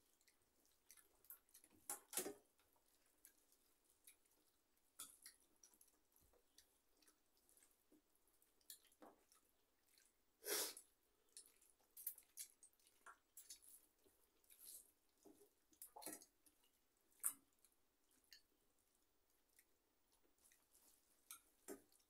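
Faint eating sounds of people eating rice and dal by hand from steel plates: scattered wet chewing and mouth clicks with fingers working the food against the plates. A couple of louder clicks stand out, about two seconds in and about ten seconds in.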